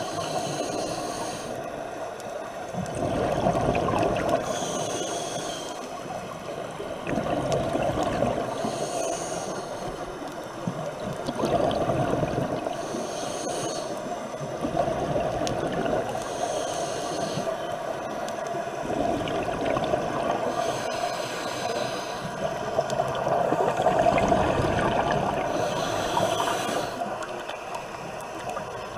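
Scuba diver breathing through a regulator underwater: a short hissing inhale about every four seconds, each followed by a longer rumble of exhaled bubbles.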